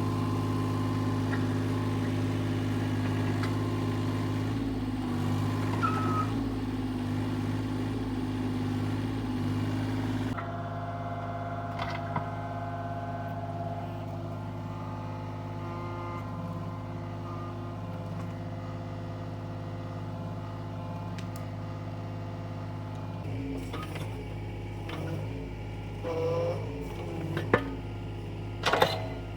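Excavator engine running steadily under work. Its tone shifts abruptly about ten seconds in, and a few short knocks or clanks come near the end.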